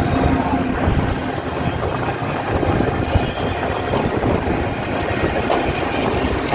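Rushing road and wind noise from riding in an open-sided rickshaw, with wind buffeting the phone microphone.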